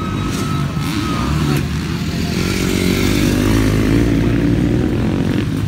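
Motocross dirt bike engines racing on the track, growing louder toward the middle and then fading a little near the end.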